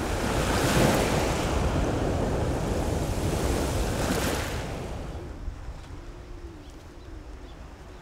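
Wind and choppy sea water rushing, loudest about a second in and dying down after about five seconds. A faint wavering hum follows near the end.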